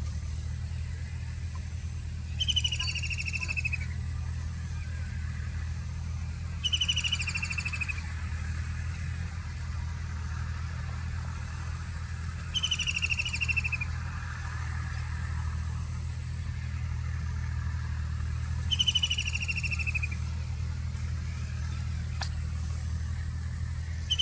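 White-throated kingfisher giving its call four times, every four to six seconds: each call is a shrill trill of about a second that falls in pitch. A steady low hum runs underneath.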